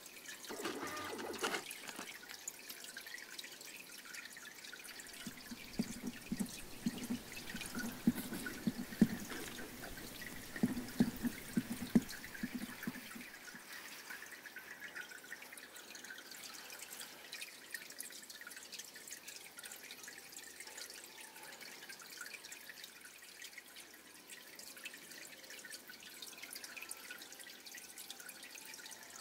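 Small harbour waves lapping and dripping against a pier, with a run of sharper knocks and splashes from about six to thirteen seconds in.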